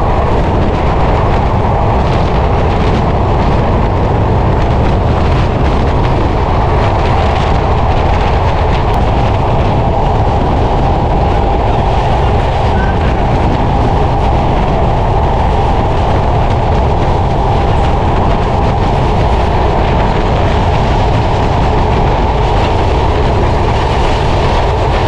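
Sundarban Express passenger train running steadily on an elevated rail line, heard from an open carriage doorway, with wind rushing over the microphone and faint wheel clatter.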